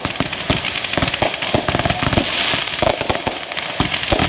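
Fireworks going off: a rapid, irregular string of pops and bangs with crackle and hiss between them.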